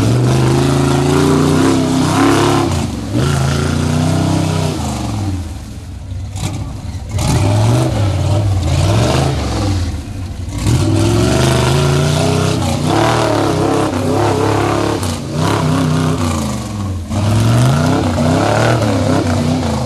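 Chevy K5 Blazer's engine revving hard over and over, the pitch rising and falling in repeated surges as the truck churns through deep mud.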